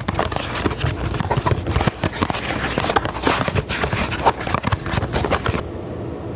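Close-miked ASMR trigger sounds: dense, irregular crackling and scratching right on the microphone. They stop abruptly about five and a half seconds in, leaving a steadier low rustle.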